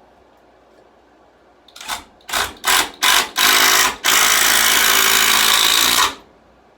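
Cordless power drill driving a screw into a 2x4: five short trigger pulses, then a steady run of about two seconds that stops abruptly.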